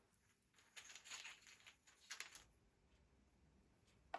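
Faint rustling and clicking of small divination pieces, runes or cards, being handled, in two short spells about a second in and about two seconds in.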